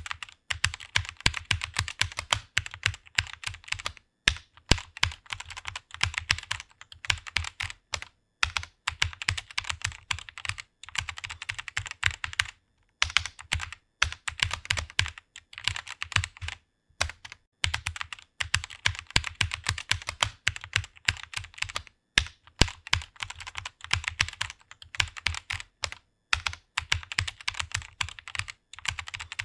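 Fast typing on a computer keyboard: rapid runs of key clicks, broken by brief pauses every four seconds or so.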